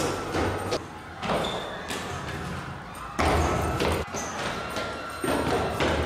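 Footsteps thudding on concrete stairs as someone hurries down a stairwell: an irregular series of thuds.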